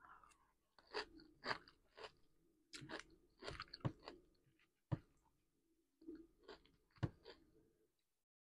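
A person chewing a mouthful of leafy vegetable salad, with short separate crunches and pauses between them.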